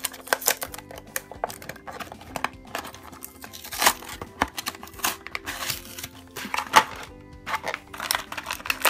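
Clear plastic toy packaging crinkling and crackling as it is pulled open by hand, in sharp irregular crackles that are loudest about four and seven seconds in. Light background music with steady held notes plays underneath.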